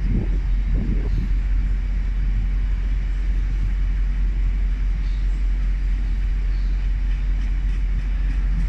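Freightliner freight train of open box wagons rolling past, its wheels on the rails making a steady low rumble.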